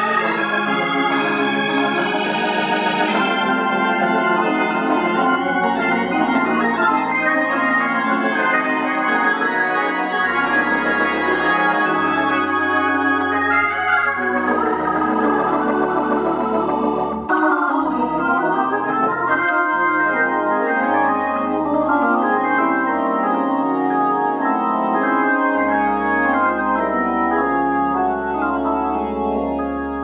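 Hammond B3 organ played with full chords over low bass-pedal notes, with sweeping runs down and back up the keyboard around the middle, fading near the end. Its present tone is one the owner finds too mellow, lacking bite and crunch.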